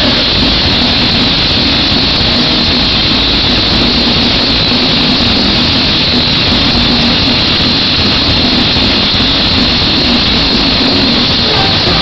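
Dense, overloaded roar of a packed rock-concert crowd between songs, with a low steady hum underneath.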